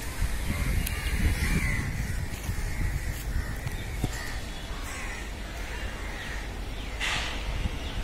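Crows cawing a few times over a steady low rumble.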